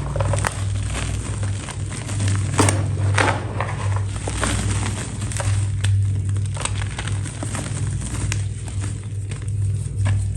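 A brittle, crispy material being crushed and crumbled by hand, giving irregular crackling snaps of varying strength over a steady low hum.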